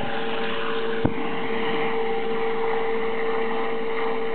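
Air ambulance helicopter flying away overhead: steady rotor and engine noise with a steady whine. A single sharp click comes about a second in.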